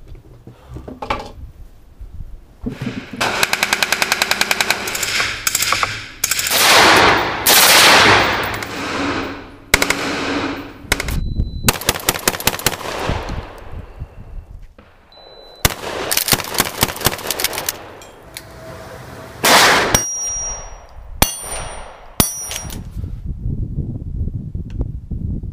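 Gunfire from several different guns in quick succession: two long runs of rapid, evenly spaced shots, with single sharp shots and a few longer, louder blasts between them.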